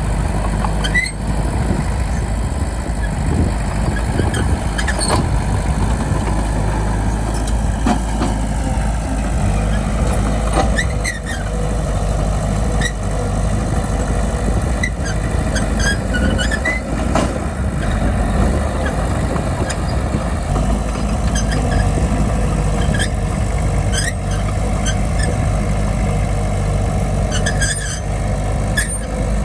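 Bulldozer's diesel engine running steadily, with scattered short metallic squeaks and clanks from the working machine.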